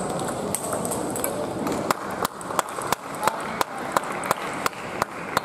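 Table tennis ball clicks against bats and tables: a sharp tap under a second in, then an even series of taps about three a second from about two seconds on, over the hall's background noise.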